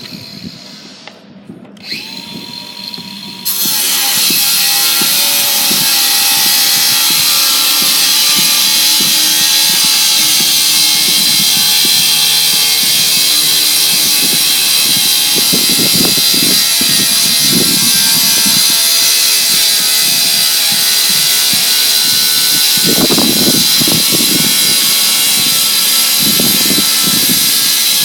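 Circular saw cutting on a building site, very loud. It comes in suddenly a few seconds in after a quieter start, then runs as a steady, high-pitched screaming whine.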